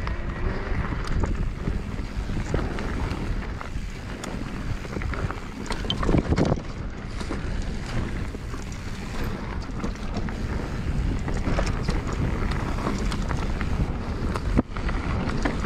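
Wind buffeting the microphone over a steady rumble, with scattered knocks and rattles and a louder swell about six seconds in.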